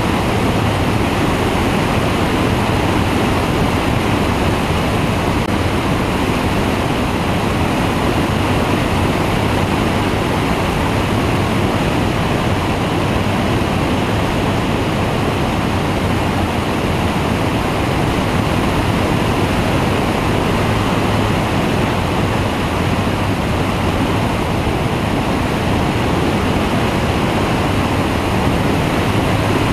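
Steady rush of airflow buffeting the microphone of a wing-mounted camera on a flex-wing microlight trike in cruise, with the trike's engine and propeller running at a constant pitch underneath.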